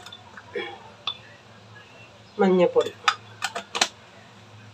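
Several sharp clinks and taps of kitchen utensils against a steel mixer-grinder jar as ingredients are added. A short voice sounds just before them, over a low steady hum.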